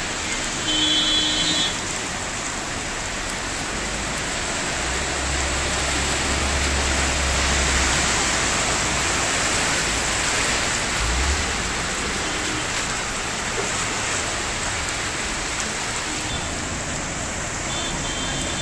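Heavy rain hissing steadily onto a flooded street, with water splashing. A brief high tone sounds about a second in, and a low rumble in the middle fits a car driving through the floodwater.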